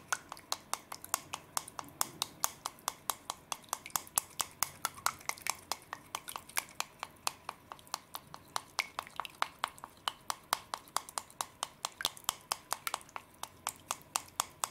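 Wooden chopsticks whisking a slime mixture in a clear plastic bowl, clicking in a quick, steady rhythm of about five clicks a second.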